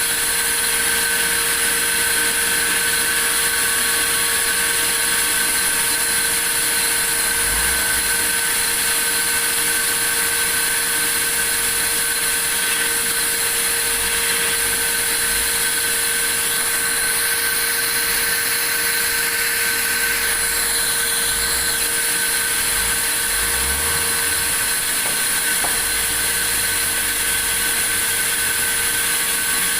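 Sawmill saw running steadily: a constant loud machine noise with a few steady high tones held throughout.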